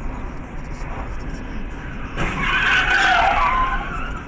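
Steady road noise of a moving car, then about two seconds in a loud tyre squeal lasting nearly two seconds, its pitch wavering: a vehicle skidding under hard braking.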